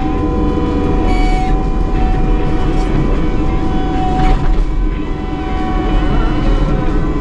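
Dirt screener and excavator running: a constant diesel drone with a steady whine over it. Soil and rock clatter briefly about a second in and again just past four seconds.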